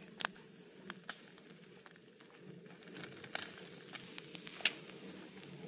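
Thick-cut bacon sizzling quietly on a wire grill over charcoal, with a few sharp pops and crackles from the fire as the fat drips onto the coals.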